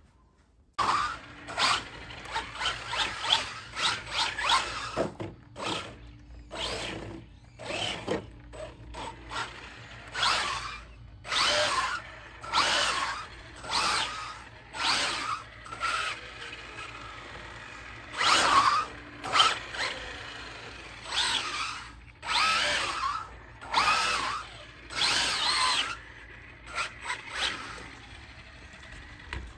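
Brushless electric motor of a Traxxas Rally Slash RC car (Velineon VXL motor) whining in short bursts of throttle, more than a dozen of them, each rising and falling in pitch as the car speeds up and slows.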